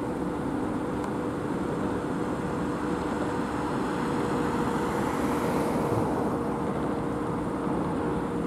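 Street traffic noise under a steady mechanical hum that holds two constant tones, swelling briefly about halfway through as a vehicle passes.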